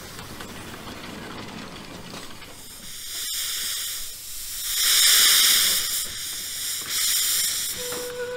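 Lombard steam log hauler venting steam: a steady hiss that swells to a loud blast for about a second, some five seconds in. Just before the end, its steam whistle starts a steady note.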